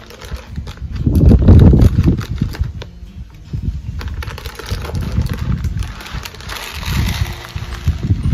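Granular bokashi fertilizer poured from a plastic bag into a plastic bowl, the pellets rattling and pattering, with plastic bag rustling. A loud low rumble comes about a second in.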